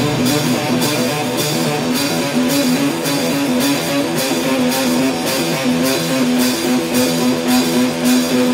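Background music: a guitar plays a repeating picked pattern with light percussion, with no bass or vocals.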